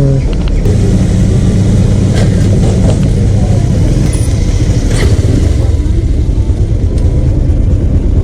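Motorcycle engine running steadily at a low, even pitch, with a sharp click about five seconds in.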